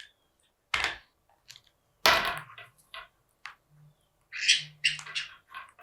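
Irregular knocks and clatters of a parmesan bottle being worked at by parrots' beaks, with the loudest hits about two and four and a half seconds in.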